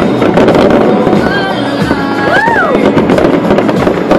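Fireworks going off in quick succession: a dense run of crackles and bangs. About two and a half seconds in, a brief tone rises and then falls.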